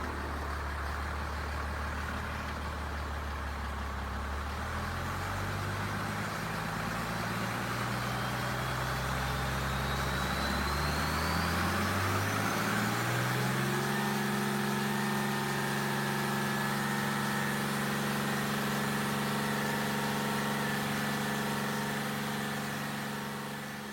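Deutz BF6L913 six-cylinder air-cooled turbocharged diesel running, its speed climbing steadily from about four seconds in to about halfway, with a faint high whine rising alongside. It then holds steady at the higher speed and fades out at the very end.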